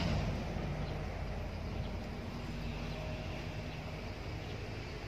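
A steady, low hum like a distant motor engine, easing off a little after the first second, over an even outdoor hiss.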